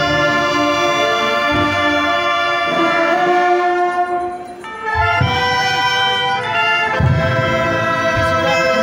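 Brass band playing a slow procession march: long, held brass chords over occasional bass drum beats.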